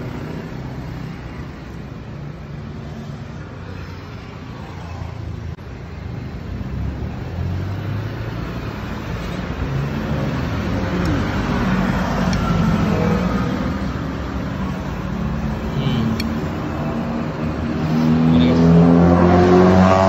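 Road traffic passing close by: a steady hum of vehicle engines and tyres, with one engine growing louder near the end as it passes.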